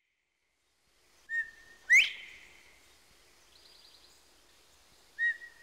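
Northern bobwhite quail giving its two-note 'bob-white' whistle twice, a few seconds apart: each time a level note, then a sharp rising whistle that trails off.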